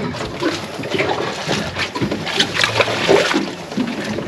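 Irregular splashing and slapping of water, with scattered clicks and knocks.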